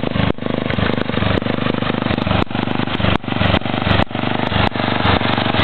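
International Harvester Cub Cadet 482 lawn tractor's 11 hp Briggs & Stratton engine running loud through a straight-piped dual exhaust. The steady engine note dips briefly several times.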